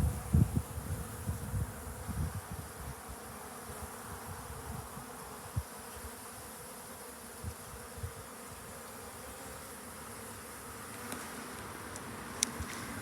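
Honeybees buzzing steadily in an opened hive, with a few low knocks in the first seconds and a sharp click near the end.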